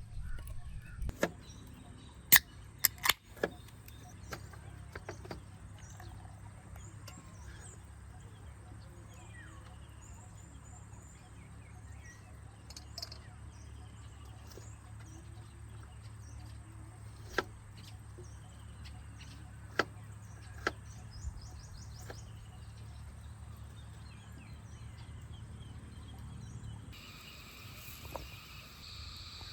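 Rainforest campsite ambience: birds chirping faintly over a low steady rumble, broken by a few sharp isolated cracks. Near the end the sound changes to a steady, high insect chorus.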